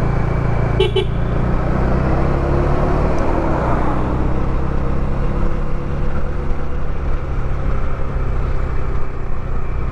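Motorcycle engine running steadily under wind noise, picked up by a lavalier mic inside a helmet's chin curtain, with a brief click about a second in.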